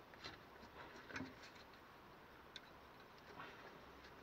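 A few faint, scattered metal clicks as two spanners work the nut on the carburettor's choke cable, against near silence.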